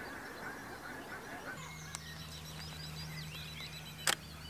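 Lakeside birds calling: distant geese honking among other bird calls for the first second and a half, then small birds chirping over a low steady hum. A single sharp click sounds about four seconds in.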